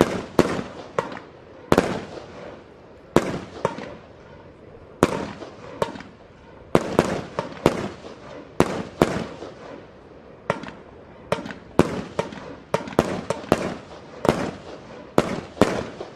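Aerial fireworks banging in rapid, irregular succession, about two sharp bangs a second and often several in quick clusters, each with a short fading tail.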